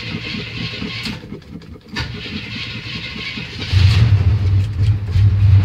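1977 GMC Sierra Grande's 350 V8 being cranked by the starter after sitting for weeks, catching about three and a half seconds in and settling into a steady idle. The idle is louder than the cranking.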